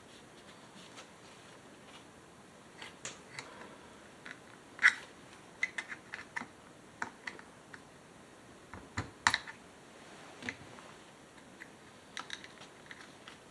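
Scattered light clicks and taps of small parts and hand tools being handled on a chainsaw's shut-off switch and its wire. Two sharper clicks stand out, about five seconds and about nine seconds in.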